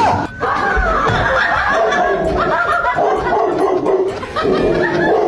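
A dog howling in long, wavering cries, with a person laughing.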